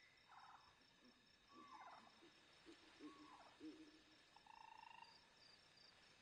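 Faint night-time jungle ambience: insects chirping steadily in a high, even pulse, with scattered short animal calls and a brief buzzing trill about four and a half seconds in.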